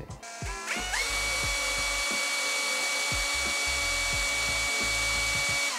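Cordless drill (Heimerdinger) spinning an ice-auger adapter in its chuck with no load: the motor whine climbs as it spins up in the first second, runs at a steady pitch, then cuts off at the end.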